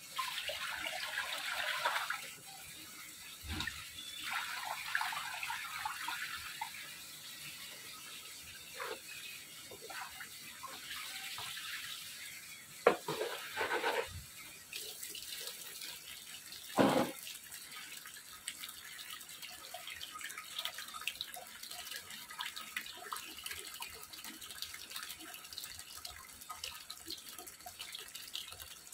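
Live crabs being washed by hand in a plastic basin: water sloshing and splashing, with two sharp knocks near the middle. Later, tap water runs steadily into the basin.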